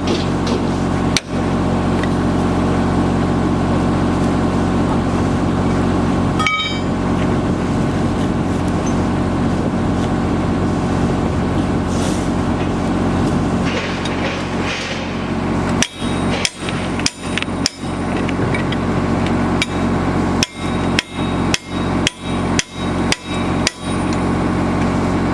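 Construction machinery running with a steady drone, with a single sharp knock twice early on and then, in the last third, a run of about a dozen hammer blows, roughly two a second.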